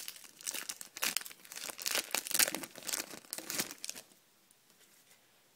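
Foil wrapper of a Match Attax trading-card pack being crinkled and torn open by hand, with dense crackly rustling that stops about four seconds in.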